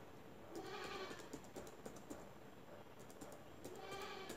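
Faint clicking of computer keyboard keys being typed in quick, irregular strokes.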